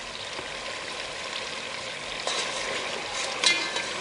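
Oil sizzling in a stainless steel pot of frying kidney, gizzard and shrimps with freshly added ground pepper, growing louder about two seconds in as a metal spoon stirs the pot. A sharp metallic clink of the spoon against the pot comes near the end.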